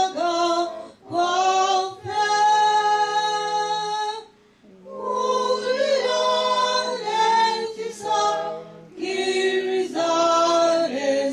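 Small church choir of women's and a man's voices singing a hymn, women's voices to the fore, in held phrases broken by short pauses.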